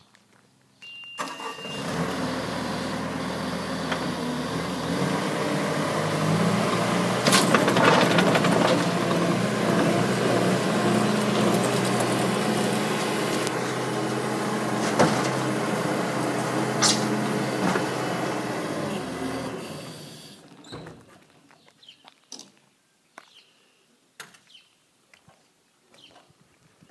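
Engine of a tracked skid steer cranked and catching about a second in, then running steadily for around eighteen seconds with a few sharp knocks, and shut off, winding down at about twenty seconds. Faint clicks and thuds follow.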